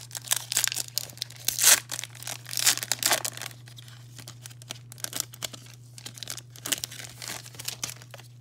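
Baseball trading cards rustling and scraping against each other as they are flipped through by hand, a quick run of sharp scrapes, loudest about two and three seconds in, then sparser. A steady low electrical hum runs underneath.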